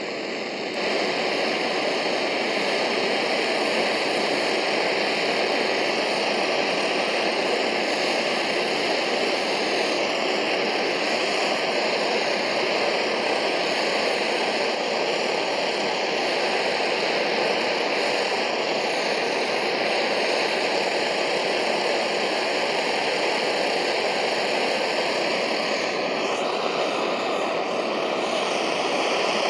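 Vintage brass Max Sievert blowtorch soldering iron burning steadily: its burner makes a constant rushing noise with a faint whistle over it, heating the copper soldering bit as it is test-fired after restoration. The noise steps up about a second in as the valve is opened further, and the whistle rises slightly in pitch near the end.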